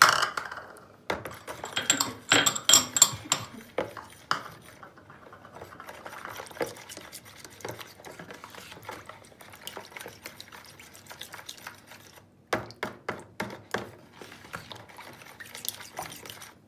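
Metal spoon stirring a thin liquid batter of milk, water, yeast, oil, sugar and egg white in a plastic bowl. The spoon clinks and scrapes against the bowl as the liquid sloshes, with a run of quicker strokes near the end.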